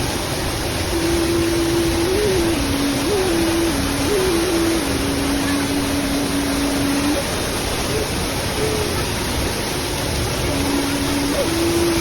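Steady rush of spring water falling and flowing. Over it runs a thin tune of held notes that step up and down, from about a second in to about halfway, and again near the end.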